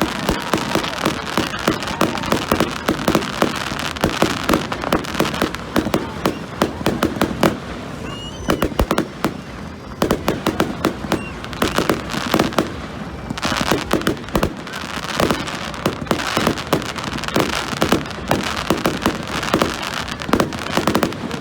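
A fireworks display: rapid, overlapping bangs and crackling bursts going off continuously, with a brief whistle about eight seconds in.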